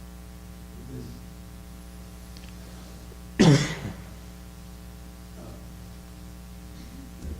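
A single loud cough about three and a half seconds in, lasting about half a second, over a steady mains hum.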